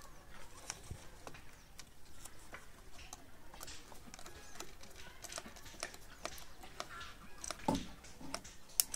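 Faint scattered clicks and scrapes of a small screwdriver working the terminal screws of a plastic switchboard, with wires being handled. There is one louder thump about three-quarters of the way through.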